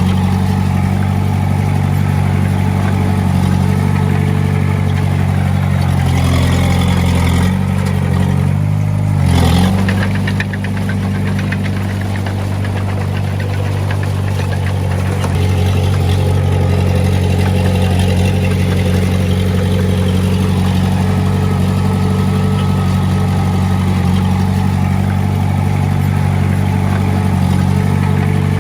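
Diesel engine of a Komatsu D20A bulldozer running steadily under work. Its pitch shifts and dips briefly about seven to ten seconds in, then holds steady again.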